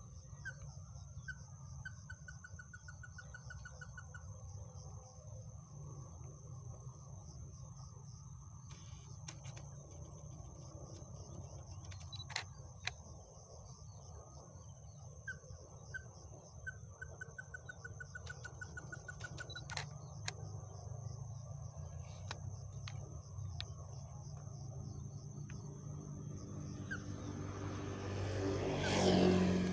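Dawn nature ambience: a steady high insect drone with bird chirps and short rapid trills over a constant low rumble. Near the end a louder low hum swells and peaks.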